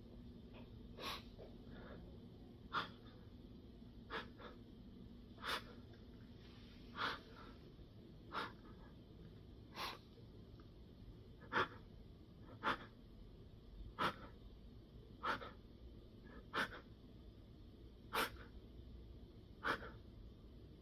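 A man crying: short, sharp sniffling sobs, about one every second and a half.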